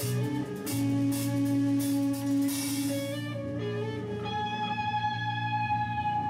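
Instrumental progressive rock from electric guitar, bass guitar and drums: held, ringing guitar notes over a sustained bass note. The cymbals stop a little past halfway, leaving the guitar notes ringing on.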